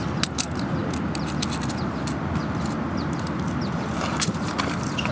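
Plastic parts of a Hasbro Transformers Prime Wheeljack toy clicking and snapping as they are folded and moved by hand during transformation. Many short, irregular clicks sound over a steady low rumble.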